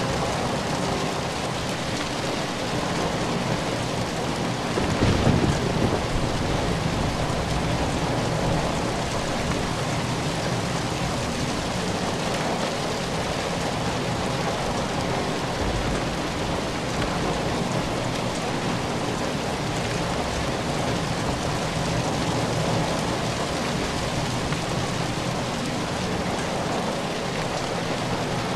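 Steady rain falling, a dense even hiss, with a louder low rumble of thunder about five seconds in.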